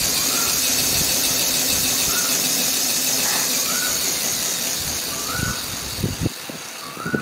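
Handmade miniature steam locomotive model hissing steadily as its wheels and rods turn, the hiss fading near the end. A short rising chirp repeats about every second and a half, and a few light knocks come near the end.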